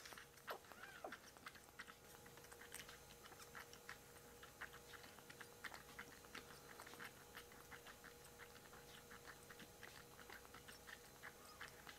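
Kitten suckling milk from a nursing bottle: a run of faint wet clicks and smacks, several a second, with one short mew about a second in.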